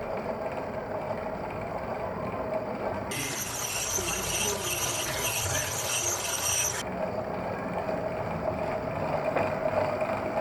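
Tacx Flux smart trainer running as it is pedalled: a steady hum from the belt and flywheel. About three seconds in, a brighter high-pitched sound joins for several seconds, then drops away again.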